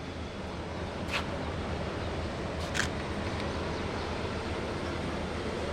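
Steady outdoor background noise with a low hum, broken by two brief sharp noises about one and three seconds in.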